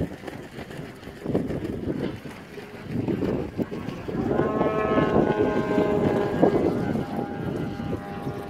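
Engine of a giant-scale Extra 330SC RC aerobatic model plane. For the first few seconds there is mostly uneven rushing noise as it comes down the downline. From about four seconds in, the engine drones steadily with a clear pitch as it pulls out and flies level.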